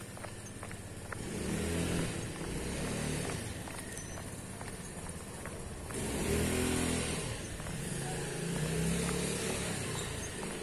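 Cars driving past on a street, engine hum swelling and fading three times, about two, six and nine seconds in, the middle pass the loudest.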